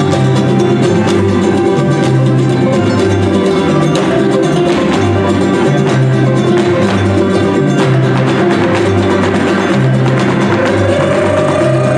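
Live son jarocho music from a strummed string band, steady and loud, with dancers' zapateado footwork clicking sharply on wooden tarima platforms.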